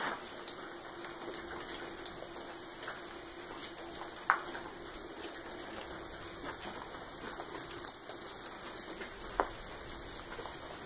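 Footsteps on a rubble-strewn concrete floor: scattered small crunches and ticks over a steady hiss, with two sharp clicks about four and nine seconds in. A faint steady hum runs under the first seven seconds.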